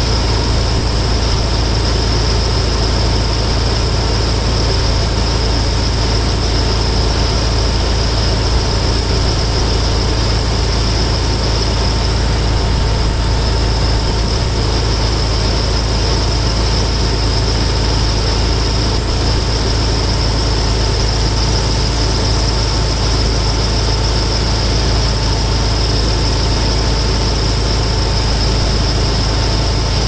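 1992 Toyota 4Runner engine idling steadily with the air conditioning switched on, its A/C system being charged with R-134a refrigerant from a can on the low-side line.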